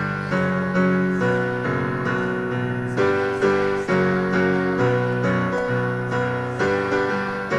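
Keyboard music: steady chords struck about twice a second.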